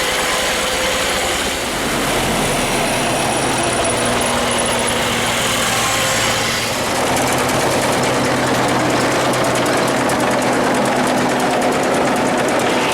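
Tractor driving a silage cutter (forage harvester) through the PTO, its heavy cutter head spinning at speed while the knives are sharpened. A loud, steady mechanical noise, with a fast rattle coming in about halfway.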